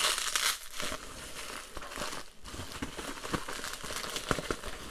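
Plastic bubble wrap and packing tape crinkling and crackling as a parcel is cut open and the wrapping is pulled back from a cardboard box, with a louder rustle right at the start.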